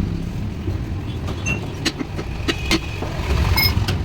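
Steady low rumble of motor vehicles running, with a few short, sharp clinks in the second half and a brief ring near the end.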